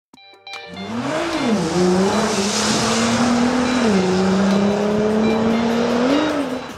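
Racing car engine at high revs, its pitch rising and falling a few times, over a loud rushing noise of road and wind. It swells in within the first second and falls away near the end.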